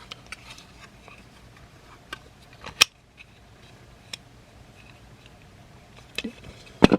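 Plastic parts of a Transformers figure and its upgrade kit being handled and repositioned: a few sharp clicks and snaps, the loudest about three seconds in and just before the end, with soft handling noise between.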